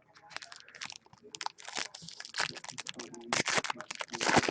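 Hockey card pack wrappers being torn open and crinkled by hand, a run of irregular crackles that grows loudest near the end.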